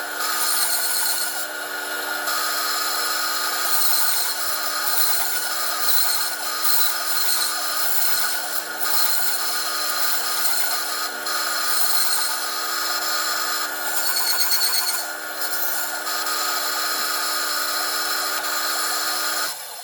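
Electric power tool running steadily while working wood, with a constant motor whine, then cutting off abruptly near the end.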